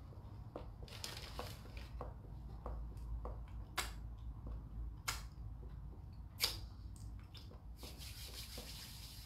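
A person biting and chewing a soft bread sandwich close to the microphone: soft moist chewing and rubbing with small clicks. Three sharper clicks fall in the middle, the last the loudest, over a steady low hum.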